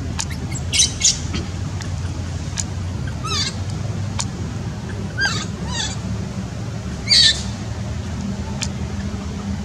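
Newborn macaque squeaking: about six short, high-pitched squeaks, several falling in pitch, over a steady low background hum.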